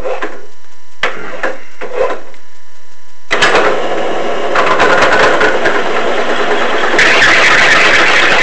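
A few sharp knocks, then a small benchtop drill press switched on about three seconds in, its motor running while a 1-inch bit cuts into the compressor pulley's hub. The noise turns harsher and louder twice as the bit bites.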